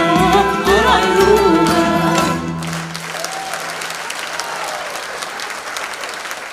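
An Armenian folk song with singing and instruments ends on a held low note about two and a half seconds in, followed by audience applause.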